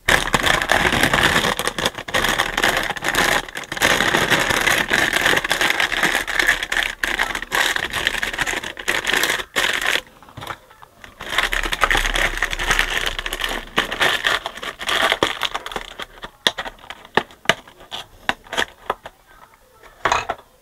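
Clattering, scraping and clicking of metal parts being handled as a CD player is put back together, in two long busy stretches followed by scattered separate clicks.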